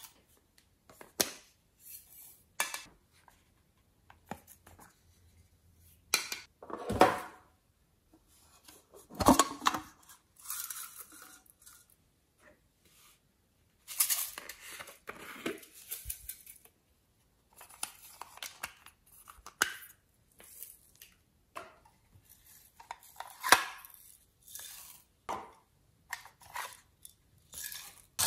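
Hands handling small containers and slime mix-ins over a glass dish: scattered clicks, taps and crackly rustles with silent gaps between, the loudest a sharp knock about nine seconds in.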